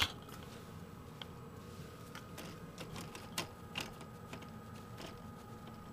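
Light, irregular clicking on a computer, about a dozen short clicks spread through a few seconds, over a faint steady hum.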